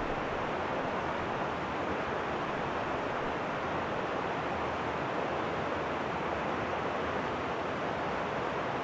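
Shallow creek pouring over a low rocky ledge, a steady, even rush of white water.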